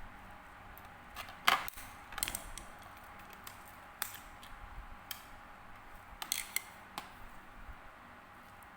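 Scattered sharp plastic clicks and taps, the loudest about a second and a half in, as the battery-compartment cover of a children's talking book is fitted back and screwed shut with a small screwdriver.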